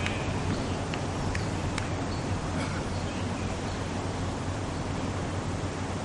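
Steady outdoor background noise: an even hiss with a low hum underneath, and a few faint short high chirps or ticks in the first two seconds.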